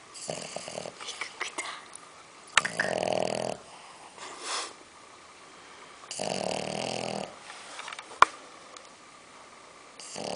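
A sleeping pet snoring: two snores about a second long, roughly three and a half seconds apart, with a third starting at the very end. Small clicks come in the first two seconds, and one sharp click a little after eight seconds in.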